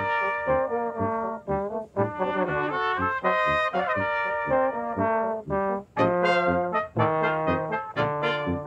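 Brass quintet of two trumpets, French horn, trombone and tuba playing a lively Spanish march. The phrases break off briefly about a second and a half in, at two seconds and just before six seconds, and after that the notes come shorter and more separated.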